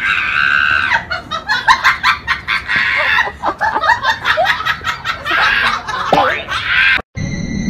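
A person laughing hard in quick, stuttering bursts, mixed with harsh bird calls. The sound cuts off abruptly near the end.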